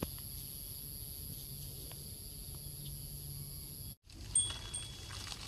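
Outdoor ambience dominated by a steady, high-pitched insect drone. About four seconds in the sound cuts out for an instant, then returns with a different steady insect tone, short repeated chirps and a few light knocks.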